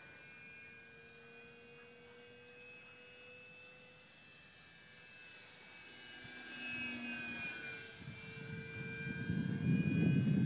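Electric brushless motor and propeller of a small foam-board RC airplane whining in flight, faint and steady at first, then growing louder over the last couple of seconds as the plane comes in low.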